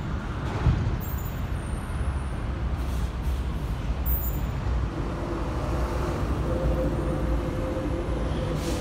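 Truck engine idling: a steady low rumble, with a faint hum joining about halfway through.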